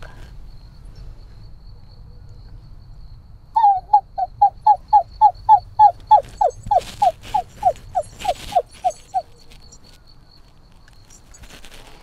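A woman's voice imitating an animal call: a quick run of about eighteen short falling yelps, roughly three a second, starting a few seconds in and stopping about three-quarters of the way through. The yelps grow longer and drop lower toward the end, with a couple of breathy hisses among them.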